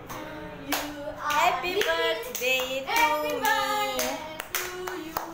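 Children singing together while clapping their hands, with sustained sung notes and repeated sharp hand claps.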